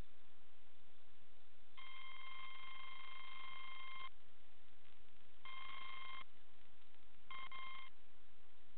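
Electronic beeps, one steady mid-pitched tone: a long beep of about two seconds, then two shorter beeps, over a steady hiss.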